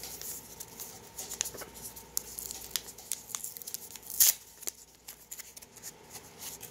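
Gloved hands opening a small brown paper wrapper: rustling and crackling paper with scattered sharp snaps, the loudest about four seconds in.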